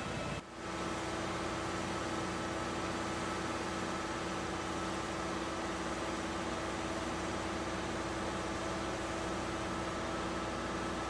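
Engine running steadily, a constant drone with a fixed pitched hum. It drops out briefly about half a second in, then carries on unchanged.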